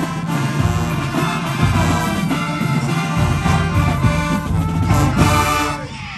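Full marching band with massed brass and sousaphones playing loudly, the heavy bass line underneath; the music cuts off near the end as the passage finishes.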